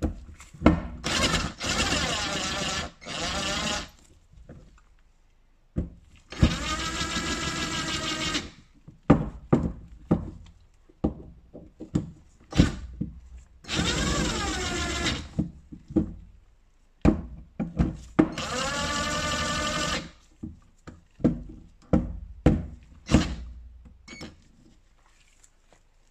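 Handheld power driver whining in four runs of about two seconds each, running in the bolts that join the two halves of a Tokico six-piston brake caliper to seat them, not yet fully tightened. Sharp clicks and knocks of metal on metal come between the runs.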